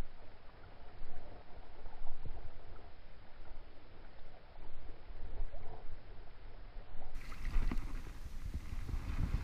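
Low rumble of wind on the microphone over water at the shoreline. Near the end, louder splashing and sloshing as hands lower a sea trout into the shallows to release it.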